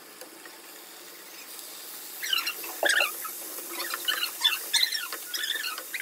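Cream-marinated chicken pieces sizzling in hot oil in a frying pan: a faint hiss builds about a second and a half in, then a run of sharp crackles and pops from about two seconds on.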